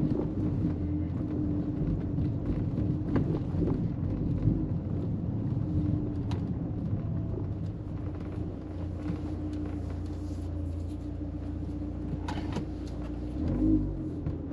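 In-cabin drive noise of a turbocharged Ford Fusion AWD: a steady engine hum over low road rumble, with a few light ticks. No clunk or roar comes from the rear differential or ITCC coupling.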